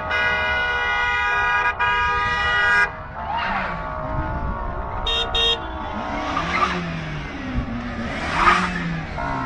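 Car horn held for about three seconds with a brief break, then a short high double toot about five seconds in, while car engines rev up and down as the cars drive past.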